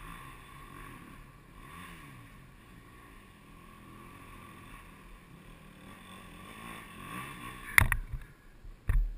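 Faint, distant dirt bike engine revving up and down over and over as it works up a rocky hill climb. Near the end come a few loud knocks and rustles right at the microphone.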